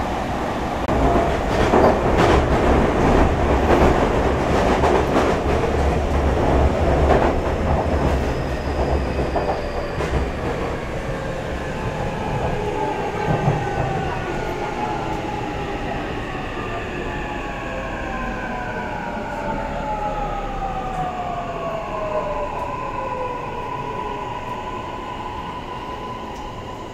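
Interior running sound of a Toei Mita Line 6500 series train braking into a station. Wheels and rail joints clatter loudly at first. Then the Mitsubishi hybrid SiC VVVF inverter's whine falls in pitch as the train slows, settling into one steady tone near the end.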